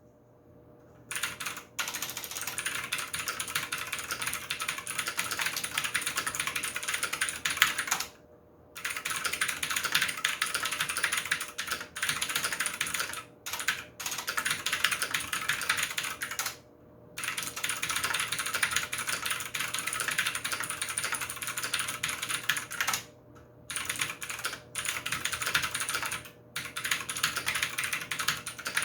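Fast, continuous typing on a Maxtill TRON G510K V2 mechanical keyboard with its original keycaps: a dense run of key clicks, broken several times by short pauses of under a second.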